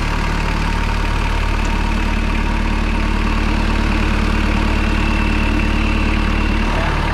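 4x4's engine idling steadily with the bonnet open, heard close up from the engine bay.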